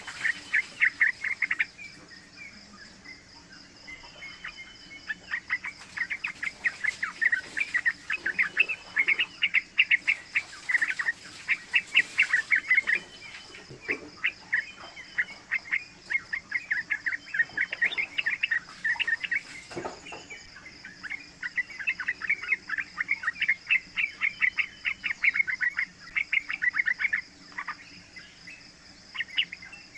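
Young yellow-vented bulbul (trucukan) calling in long runs of rapid, rolling chattering notes, broken by short pauses. A steady insect trill runs underneath.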